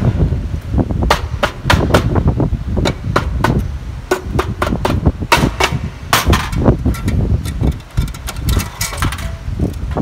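Soft-face mallet knocking on the aluminium case of a KF4A232 four-speed automatic transaxle: a ragged run of sharp knocks, several to the second at times, to break the housing joint loose so the case can be split.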